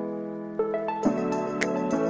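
Background music: sustained piano or keyboard chords, changing about half a second in, with a light beat coming in about a second in.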